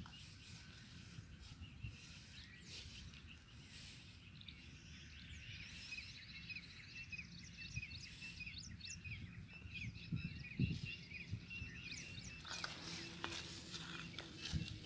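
Small birds chirping repeatedly in the background over a faint low rumble, with a few soft thuds near the end.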